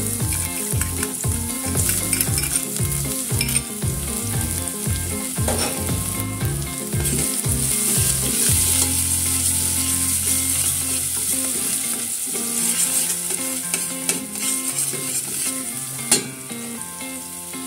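Chopped onion and garlic sizzling in hot oil in a stainless steel pot, stirred with a spoon, with a few sharp knocks of the spoon against the pot, the loudest near the end.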